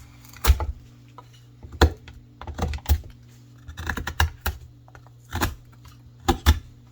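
Sharp, irregular knocks and clicks, about ten of them, some in quick pairs: a folding knife's blade striking into a block of wood.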